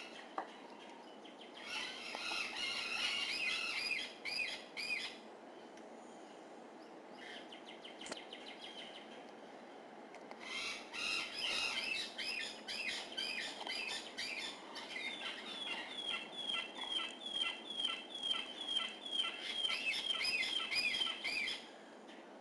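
Runs of high, thin chirping calls: a short burst, then after a pause a longer series that settles into evenly repeated chirps, about two or three a second, stopping shortly before the end.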